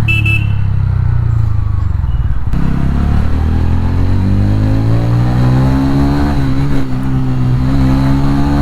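TVS Ronin 225's single-cylinder engine running under way, its pitch rising as the bike accelerates from about three seconds in, then holding steady, with road and wind noise beneath.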